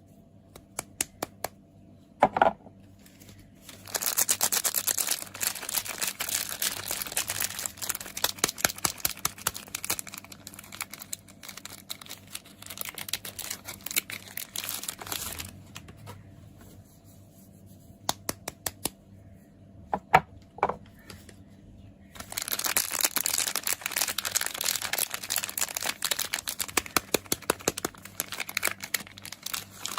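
Soap packaging unwrapped by hand: the wrapper crinkling and tearing in two long stretches, with scattered sharp clicks and taps in the quieter gaps between.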